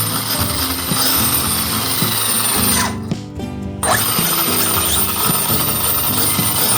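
Background music with steady stepped tones in the low range. All the high end drops out for about a second midway, then returns.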